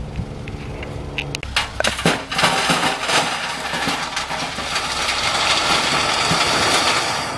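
Colt dump trucks tipping loads of rock. At first the engine runs with a steady hum. About a second and a half in, rocks start clattering, then they pour out of the raised beds as a growing, rushing rattle that is loudest near the end.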